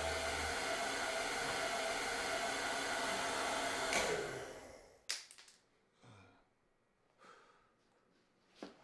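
Salon hood hair dryer running with a steady blowing whir and a faint hum, then a click about four seconds in as it shuts off and the whir dies away over about a second. A few faint clicks follow.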